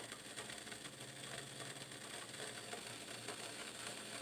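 Faint bubbling and ticking of water heating in a stainless steel whistling tea kettle, not yet at the boil and not whistling, over a faint low steady hum.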